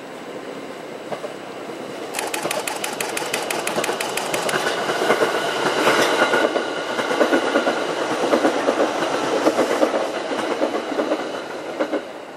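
An E531-series electric commuter train approaching and passing close by on open track, then fading. About two seconds in, a rapid run of wheel clicks over the rail starts; then a loud rumble with a steady traction-motor whine as the cars go past.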